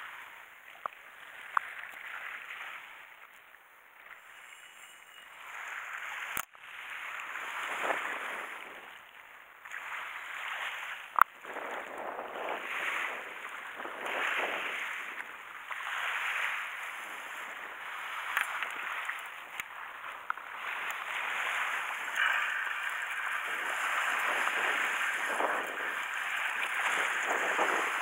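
Sea waves washing onto the shore, a rushing surge that swells and ebbs every few seconds and grows louder toward the end. A single sharp click comes about eleven seconds in.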